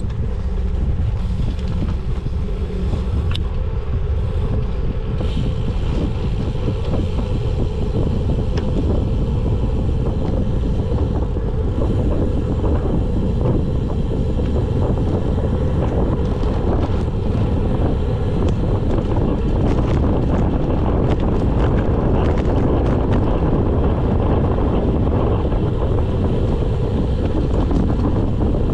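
Wind noise on the microphone of a handlebar-mounted camera on a road bike going downhill: a steady, loud rumble, with scattered light clicks.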